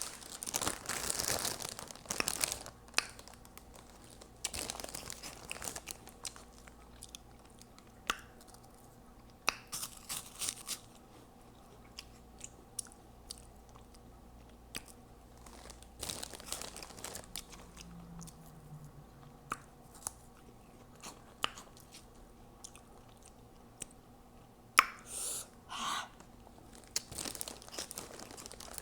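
Close-up chewing and crunching of Hot Cheetos Puffs with wet mouth smacking. It comes in bursts of crunching separated by quieter stretches of sharp little mouth clicks.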